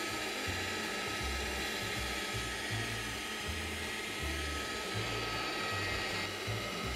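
Electric pasta machine's motor whirring steadily as a sheet of pasta dough is rolled through its rollers, over quiet background music.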